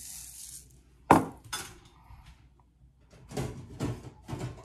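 Kitchen clatter: a sharp knock about a second in, then a run of knocks and clinks of dishes and utensils near the end.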